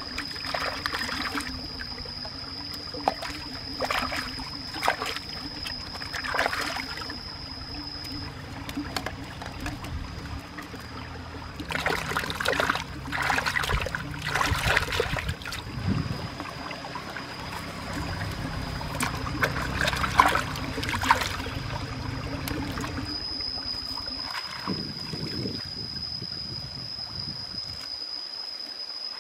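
Shallow stream running over rocks, with bouts of splashing as hands wash tomatoes in the current.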